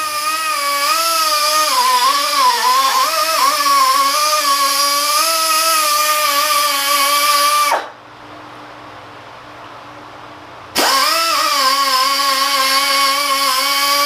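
Pneumatic air grinder driving a small wire wheel into the T-slots of a rusty cast iron faceplate: a steady high whine with air hiss, its pitch sagging when the wheel is pressed into the work. It winds down about eight seconds in and starts up again about three seconds later.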